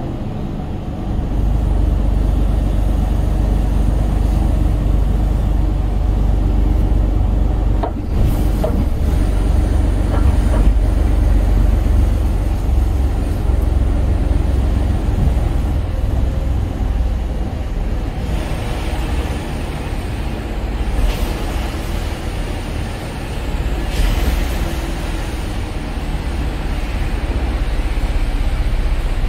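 Steady low rumble of a lorry's diesel engine and road noise, heard inside the cab, with a few short knocks along the way.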